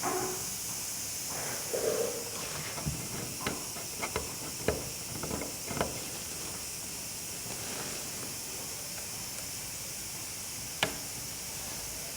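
Iwata airbrush hissing steadily as it sprays paint, with a scattering of light clicks and taps in the first half and one more near the end.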